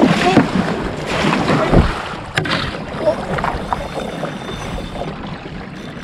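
Kayak paddle strokes splashing through the water, with water washing along the hull and wind buffeting the microphone. A single sharp knock comes about two and a half seconds in.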